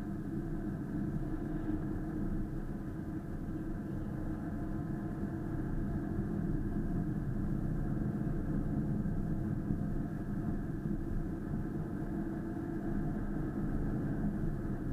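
Car engine and road noise heard from inside the cabin while driving, running steadily with no marked changes.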